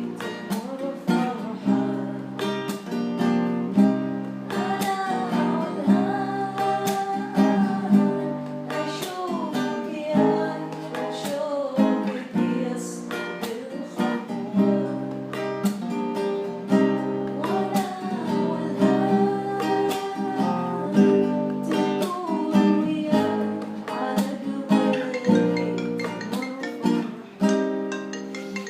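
Song with strummed acoustic guitar and a singing voice carrying the melody.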